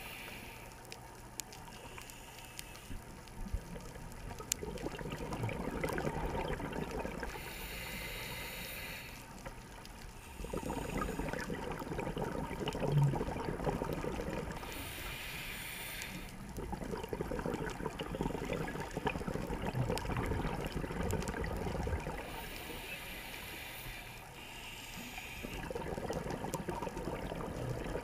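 Scuba diver breathing through a regulator underwater: a short hiss on each inhale, then a longer stretch of bubbling as the exhaled air leaves the regulator. The cycle repeats about every seven seconds, four breaths in all.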